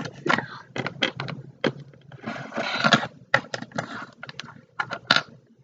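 Small plastic toy pieces clicking and clattering as they are handled, an irregular run of sharp clicks with a short scraping rustle a little over two seconds in.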